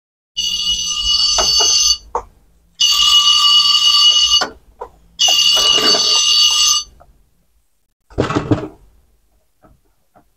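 Cordless electric screwdriver motor whining in three runs of about a second and a half each, driving screws into the chassis, with a short knock about eight seconds in.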